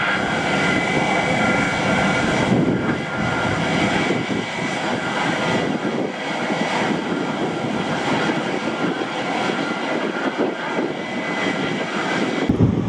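Airliner engines running: a steady roar with a high whine that weakens after a couple of seconds. Near the end, wind rumbles on the microphone.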